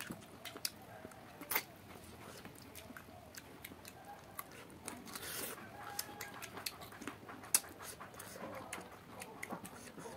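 Close-miked eating by hand: wet chewing and smacking with many sharp clicks as sticky fingers tear at cooked duck feet.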